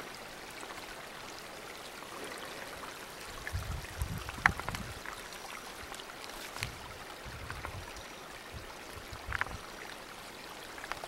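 Steady rushing hiss of open mountain air, possibly with distant running water. A cluster of low thumps on the microphone comes around a third of the way in, and another near the end.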